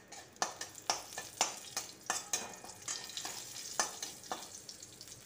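Whole spices (cumin, dried red chillies, bay leaf) sizzling and crackling in hot mustard oil in a kadhai while a spatula stirs and scrapes them, with sharp clicks about twice a second over a steady frying hiss: the tempering (tadka) stage.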